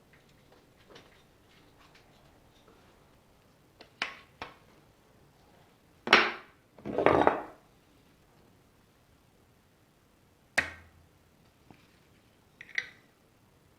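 Hand tools and metal parts being handled at a workbench: scattered sharp clicks and knocks, with two longer scraping, rustling handling sounds about six and seven seconds in.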